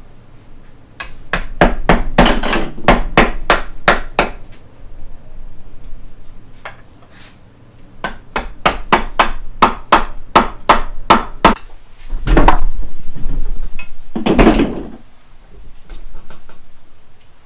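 Hammer blows while a manual transmission is being taken apart: two runs of quick strikes, about three a second, then two heavier, longer knocks near the end.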